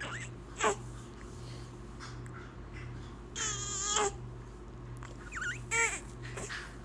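A two-month-old baby cooing and squealing: a brief high squeak about half a second in, a longer wavering coo around the middle, and another coo near the end. A steady low hum runs underneath.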